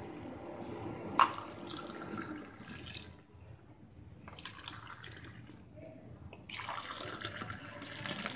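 Hot coffee being poured back and forth between a steel tumbler and a steel cup to cool and froth it, in the South Indian way. There are three stretches of splashing pours, with one sharp metal clink about a second in.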